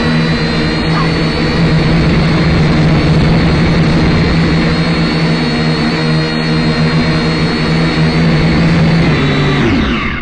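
Syma X5C quadcopter's small electric motors and propellers whirring at a steady pitch, with a high whine above. Near the end the pitch dips as the throttle changes.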